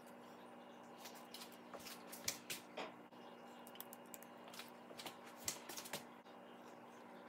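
Faint, irregular clicks and taps of hands handling raw tuna slices on a ceramic plate, starting about a second in and stopping about six seconds in, over a steady low hum.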